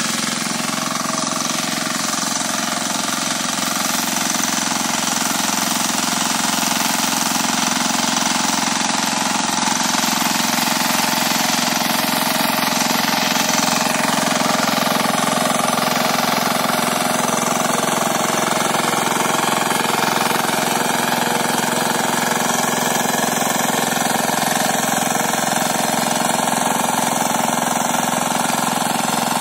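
Kirloskar 8 hp diesel power weeder running steadily under load as its rotary tines churn dry soil.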